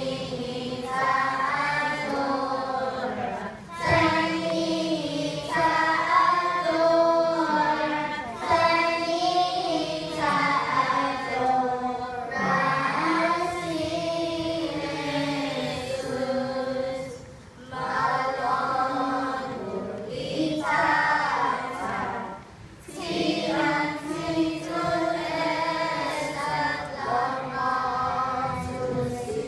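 A group of children singing together as a choir, breaking off briefly between phrases.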